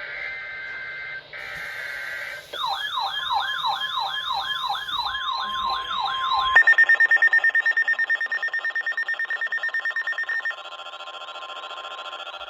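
A sequence of electronic alert tones signalling a tornado warning: first a steady two-note tone broken by short gaps, then from about two and a half seconds in a fast siren-like warble of about two and a half sweeps a second, then from about six and a half seconds rapid beeping at about nine beeps a second, and near the end a quieter steady chord of tones.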